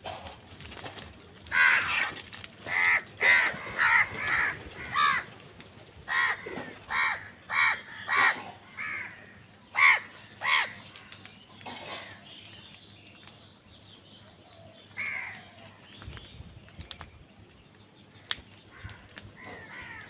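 House crows cawing: a quick run of harsh caws for about the first half, then quieter, with a single caw about three quarters of the way through and another near the end.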